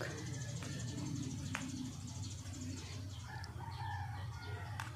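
A metal spoon clinking and scraping against a metal baking pan while cream is spread, with light clicks about a second and a half in and near the end. Behind it are a low steady hum and faint bird calls.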